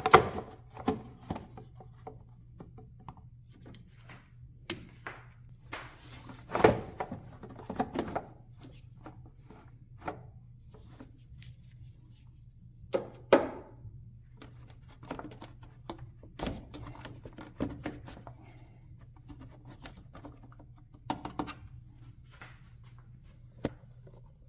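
Hands fitting a plastic air intake tube and resonator back into place: scattered knocks and clicks, a few of them louder, over a faint steady low hum.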